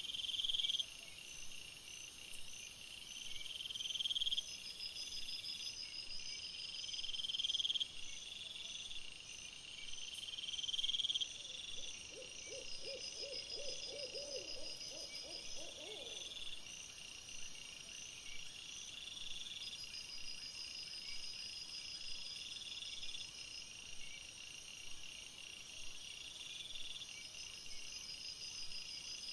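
Night insects, crickets among them, trilling steadily in high chirping trains. Over the first eleven seconds a louder buzz swells and cuts off every three to four seconds. Midway a lower, rapid pulsed call runs for about four seconds.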